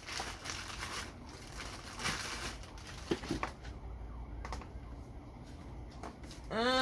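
Faint scattered clicks and rustling, as of something being handled. Just before the end, a loud, steady pitched tone starts.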